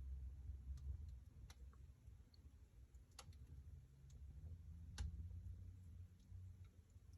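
Wood fire in a fireplace crackling faintly: a few sharp, irregular pops a second or two apart over a low rumble.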